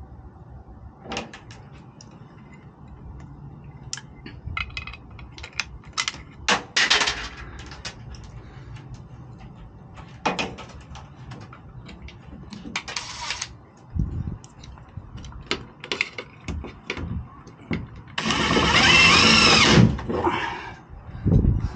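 Cordless drill driving a self-tapping screw into a metal truck cap: one run of motor whine about a second and a half long near the end, its pitch wavering as the screw bites. Before it come scattered clicks and knocks of parts and the bit being handled, with a few shorter bursts.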